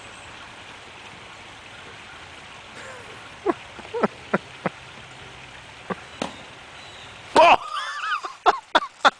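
Steady outdoor hiss with scattered knocks and rubbing from the camera being handled and carried across the lawn. Near the end comes a loud bump, then a short high wavering sound and a quick run of sharp clicks.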